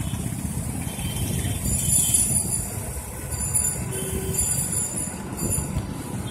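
Street traffic noise: a steady low rumble, with several short spells of a thin high-pitched squeal.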